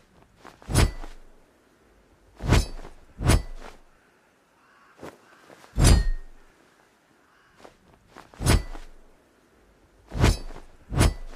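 Cutlass blade striking, about seven sharp metallic clashes at irregular intervals, some with a brief ringing tone, plus a couple of fainter taps.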